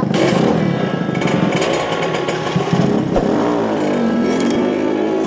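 Small trail motorcycle engines running while being ridden, a buzzing note whose pitch dips and rises again about three to four seconds in.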